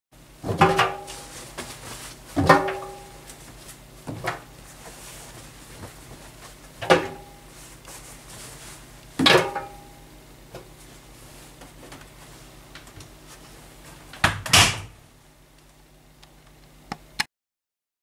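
Front-loading washing machine being loaded by hand: a series of knocks against the stainless-steel drum and door, some ringing briefly. About fourteen seconds in the porthole door is shut with a loud thump, followed by a couple of small clicks.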